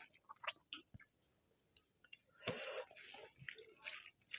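Close-up eating sounds of rice and egg curry: a few short wet mouth clicks, a brief pause, then from about halfway a longer stretch of chewing and smacking.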